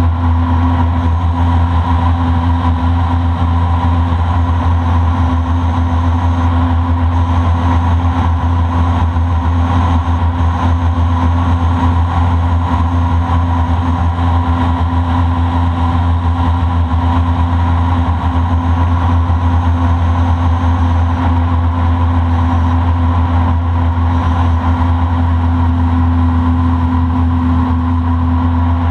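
Boat motor running steadily at a constant cruising speed, a loud, even drone with a low hum.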